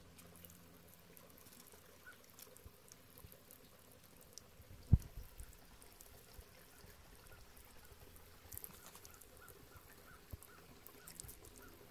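Faint trickle of water from a garden hose spray nozzle splashing onto concrete, with one sharp knock about five seconds in.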